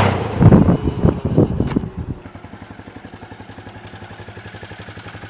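Honda dual-sport motorcycle pulling up close, its engine loud and uneven for about two seconds, then idling steadily with an even, rapid putter.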